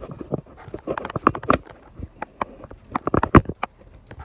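Footsteps on concrete: uneven clusters of short knocks and scuffs.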